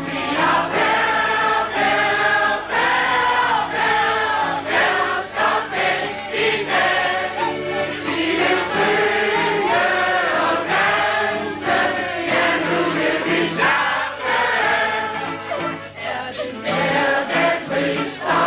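A group of voices singing a song together, with instrumental accompaniment underneath.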